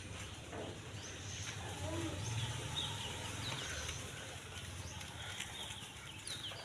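Outdoor ambience with small birds chirping in short, scattered calls over a steady low background rumble.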